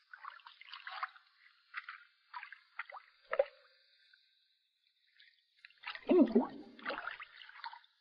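Landing net on a wooden pole being dipped and swept through a shallow rock pool: small splashes and drips, then a louder splash about six seconds in.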